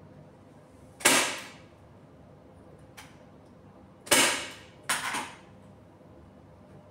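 A hand staple gun firing sharp clacks as the fabric cover is fastened to the wooden bed base: once about a second in, then two shots close together around four and five seconds, with a faint click just before.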